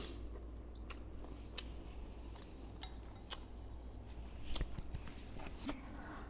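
Close-miked chewing of spicy bakso, with a few sharp mouth clicks and smacks scattered through and a brief cluster of them about four and a half seconds in.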